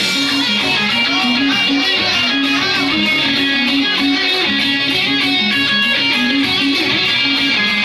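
Rock music: a repeating electric guitar riff over a steady drum beat.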